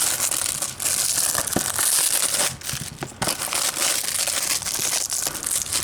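Plastic shrink-wrap being peeled and crinkled off a Blu-ray case: a continuous crackling rustle broken by a few short pauses.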